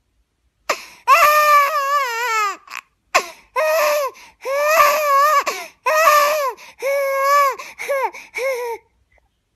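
A person crying in a run of about eight high-pitched wailing cries, each wavering in pitch.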